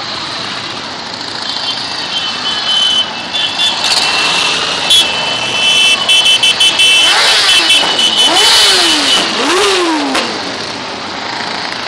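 A string of motorcycles riding past one after another, engines running. In the second half several bikes rev, and each engine note rises and then falls as it goes by.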